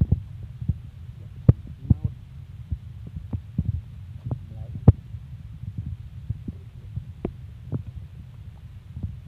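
A small wood fire being tended with a stick as palm fruits roast on it: irregular sharp cracks and knocks, the loudest about a second and a half in and again near five seconds, over a steady low rumble.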